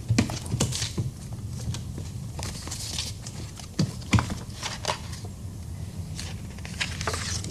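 Irregular clicks, knocks and rustles of a large presentation case and its display boards being handled, over a steady low room hum.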